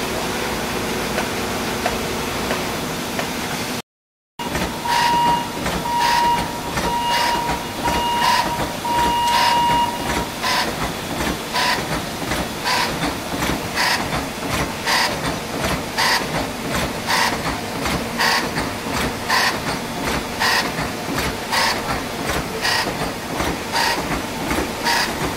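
Can-making line machinery running: first a steady mechanical hum from the can conveyors. After a short break, a Lanico BFD 280AE necker/flanger/seamer cycles with a regular clack about twice a second, over a pulsed beeping tone for several seconds.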